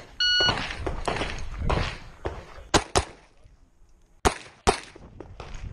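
A shot timer beeps briefly to start the stage, then pistol shots: a quick pair about two and a half seconds later and two more about a second and a half after that.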